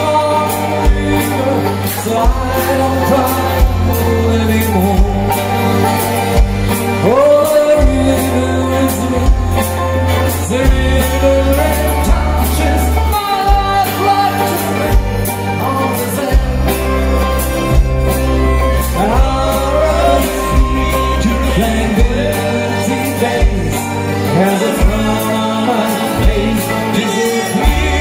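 Live band playing a song, with strummed acoustic guitars, accordion, bass and a steady drum beat, and singing over it.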